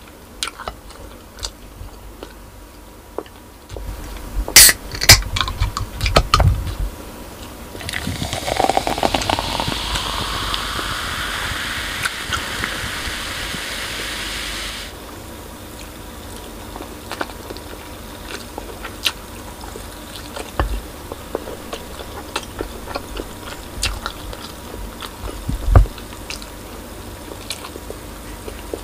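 A can of Coca-Cola snapped open about five seconds in, then poured into a glass mug for about seven seconds, fizzing, with a rising pitch as the mug fills. Soft chewing and eating clicks follow.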